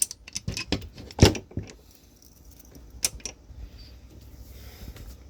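Metal clinks and clicks of crimping dies and the pin being handled and fitted into a hydraulic crimping tool: a quick run of sharp clicks in the first two seconds and one more about three seconds in.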